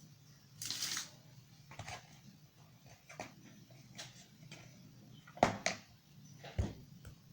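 Flour being sprinkled onto a work table, a short dry rustle about a second in. It is followed by scattered light taps and two louder knocks on the table as the baker works.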